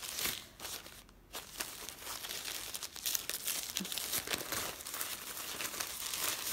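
White tissue paper crinkling and rustling as a wrapped package is handled and unwrapped, with a brief lull about a second in.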